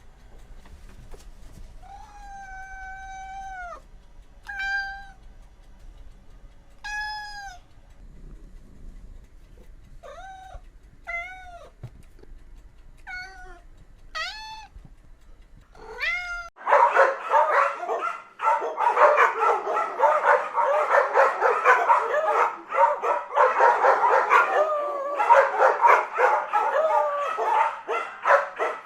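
A domestic cat meowing again and again, about eight separate meows, the first one long and drawn out. About halfway through, after a cut, a dog yips and whines in a loud, dense, fast run of overlapping calls.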